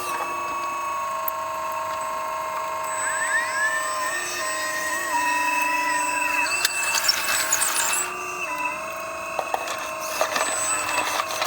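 Remote-control model excavator working: a steady electric motor whine that steps up and down in pitch as the load changes, with scattered clicks and knocks of the bucket on stones near the end.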